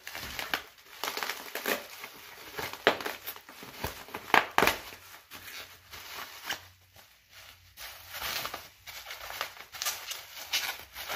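Plastic bubble wrap crinkling and crackling as it is pulled apart by hand to unwrap a packed part. The crackles come irregularly, and the loudest are a little over four seconds in.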